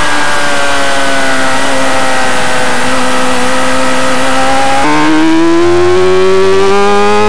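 Racing motorcycle engine recorded from an onboard camera, held at a steady, slowly sinking pitch while leaned through a long corner. About five seconds in the throttle opens and the pitch climbs steadily as the bike accelerates out of the corner.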